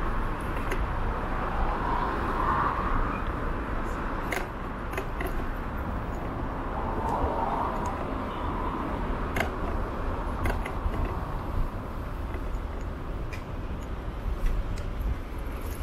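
Steady road noise while riding along a street: wind rumbling on the microphone and a hiss of tyres and traffic, with scattered light clicks and rattles.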